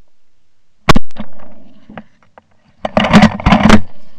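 Shotgun blasts: a single loud shot about a second in, then a quick cluster of several loud shots near the end as two hunters fire at passing ducks at the same time.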